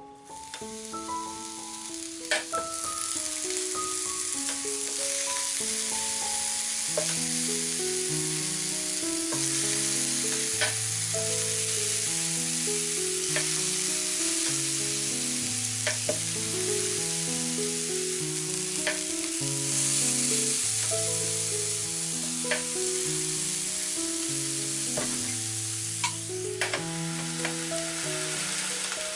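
Eggplant slices sizzling on the hot ribbed plates of a SilverCrest electric contact grill, a dense steady hiss with a few sharp clicks scattered through it. A melody of plain steady notes plays along.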